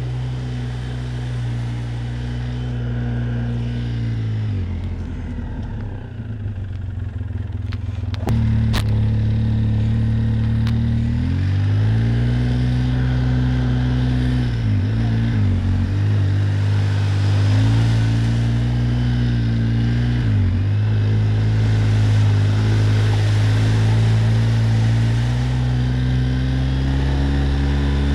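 Quad (ATV) engine running under throttle along a trail, its revs dropping off and picking back up several times before holding steady for the last several seconds. A sharp click comes about nine seconds in.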